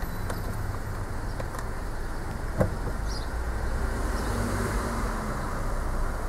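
Car engine running with a steady low rumble, heard from inside the cabin as the car rolls slowly forward, with one sharp click about two and a half seconds in.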